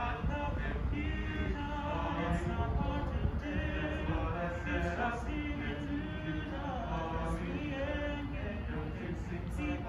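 A small group of young men singing a cappella in harmony, holding long notes.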